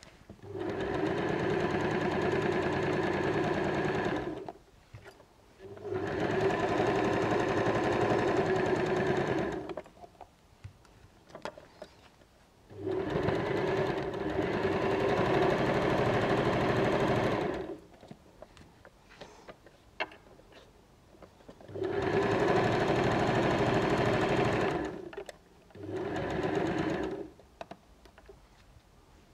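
Janome electric sewing machine stitching through pinned layers of fabric in five runs of a few seconds each, stopping briefly between runs. Faint clicks of the fabric being handled and repositioned fill the pauses.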